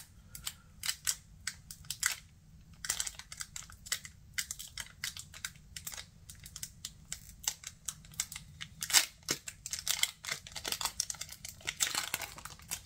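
Foil wrapper of a Pokémon card booster pack crinkling and rustling as it is opened, a run of irregular sharp crackles and clicks, loudest about two-thirds of the way in.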